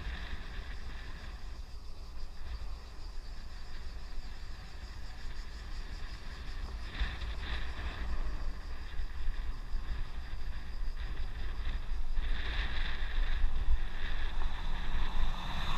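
Wind buffeting the microphone during a ride along a road, a steady low rumble throughout. A brighter hiss swells briefly about seven seconds in and again from about twelve seconds.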